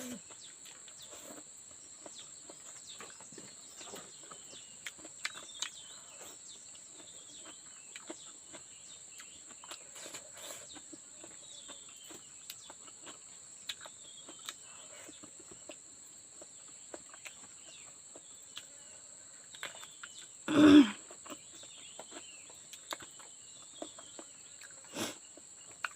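Insects, crickets or similar, chirring in a steady high-pitched drone, with scattered faint clicks. One brief loud sound about three-quarters of the way through.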